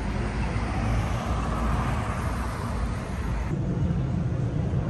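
City street traffic noise: a steady low rumble of passing vehicles, swelling for the first few seconds as a vehicle goes by.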